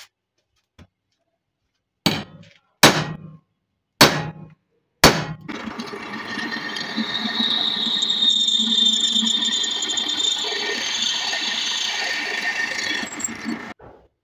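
Four sharp metallic knocks, about a second apart, each ringing briefly. Then a drill press runs with a twist bit boring through the cleaver's steel tang: a steady grinding whir with a thin high whine, cutting off suddenly near the end.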